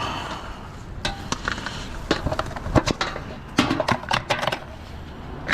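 Irregular clicks, knocks and short scrapes of hard parts and tools being handled during a washing machine teardown, with a busy run of knocks around four seconds in.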